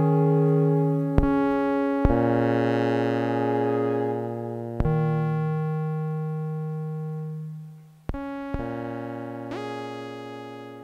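Yamaha CS01 synthesizer notes looped through a loop station: layered sustained tones over a steady low note, each new note starting with a sharp click. One note glides upward near the end, and the whole loop slowly fades.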